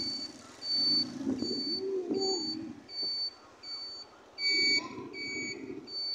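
An electronic beeper sounding a short, high beep over and over, evenly about every three-quarters of a second.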